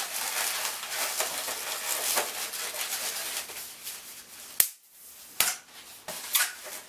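Latex modelling balloons squeaking and rubbing against each other as a 160 balloon is twisted and wrapped around a balloon turtle. A little over halfway through comes a sharp snap, the loudest sound, and two smaller snaps follow.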